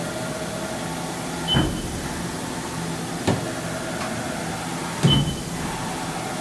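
Haas VF-2 CNC machining center's table being driven along its Y-axis by the servo drive: a steady hum with a whine under it, broken three times, roughly every second and three-quarters, by a short high beep and a thud as the axis move starts or changes direction.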